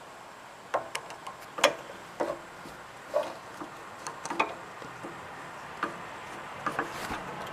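Hand tools and small engine parts being handled: irregular sharp clicks and clinks, about a dozen, the loudest about one and a half seconds in.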